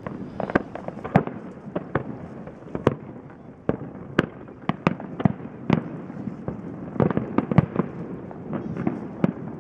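Fireworks display: a run of irregular sharp bangs from bursting shells over a continuous rumble of reports. The bangs come thickest about seven to eight seconds in.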